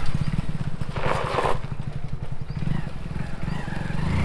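Hero Splendor Plus BS6's small single-cylinder engine running as the motorcycle rides away over gravel, its low firing pulses steady throughout. A brief rush of noise comes about a second in.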